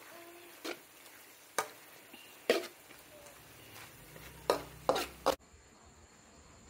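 Spatula stirring and striking the side of a wok over a light sizzle of stir-frying meat and vegetables, with about six sharp clanks, loudest in a cluster of three near the end. The sound cuts off suddenly a little after five seconds.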